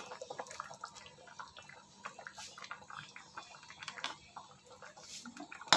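Fish soup simmering in a pan, with small irregular bubbling pops and drips. A single sharp click near the end.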